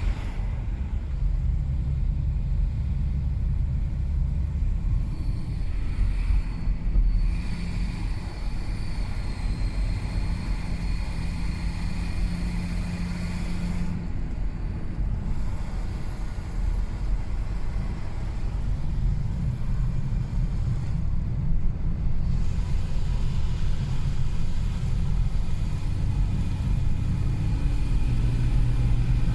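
Car engine running with a thin, high whistle like air, which sets in around 1500–2000 rpm; the cause of the whistle is unknown. The whistle comes in about five seconds in, breaks off and returns a few times over the steady engine rumble.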